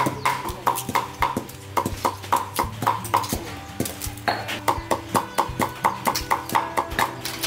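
A cleaver chopping in steady strokes, about three to four a second, each stroke a sharp knock with a short metallic ring. The chopping pauses for about a second roughly halfway through.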